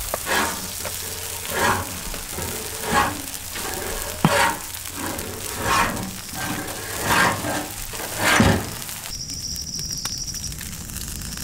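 Dosa batter sizzling on a hot flat griddle, with a swish about every second and a half as the batter is spread in circles. The sizzle drops away about nine seconds in.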